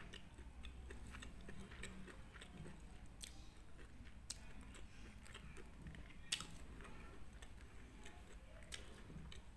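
Faint close-up chewing, with scattered soft clicks.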